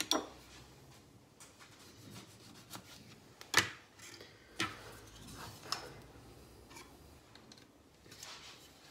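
A few scattered sharp knocks and clicks of a kitchen knife and utensils on a cutting board as a lime is cut in half, the loudest about three and a half seconds in.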